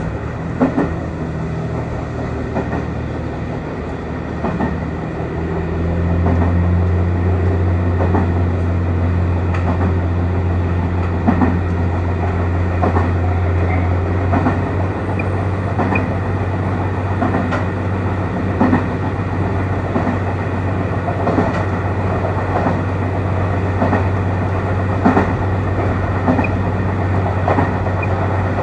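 JR Kyushu YC1 hybrid diesel railcar running along the track: a steady low drone from its drive that steps up over the first seconds and grows louder about six seconds in, with the wheels clicking over rail joints now and then.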